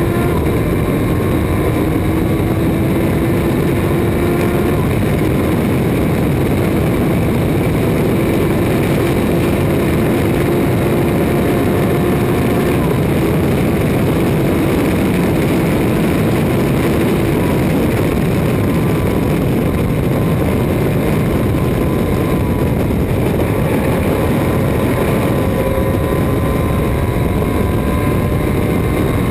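Onboard sound of a Thunder Roadster race car at speed: the engine runs hard and its pitch drifts slowly up and down, under a steady rush of wind and road noise in the open cockpit.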